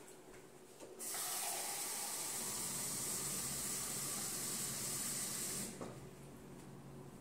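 Water running into a cup to fill it: a steady hiss of flowing water that starts about a second in and is shut off abruptly some four and a half seconds later.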